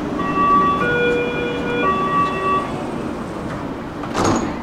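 Metro train running, with a three-note electronic chime (high, lower and longer, then high again) over the running noise in the first few seconds, and a short hiss near the end.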